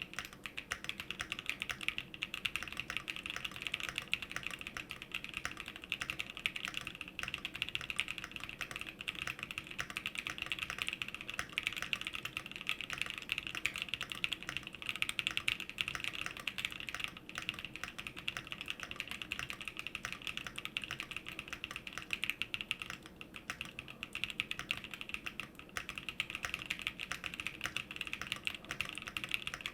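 Continuous fast typing on a Fox Labs Leaf 65 mechanical keyboard with Gazzew Boba LT switches, an aluminium plate and a PE foam mod: a dense, unbroken stream of keystrokes with a couple of brief lulls in the second half.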